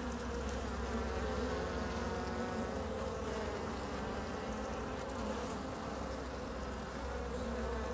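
Honeybees buzzing in an open hive: a steady hum of many bees.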